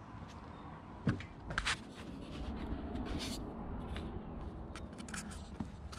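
Rubbing and scraping handling noises with a low rumble, broken by several sharp clicks and ticks.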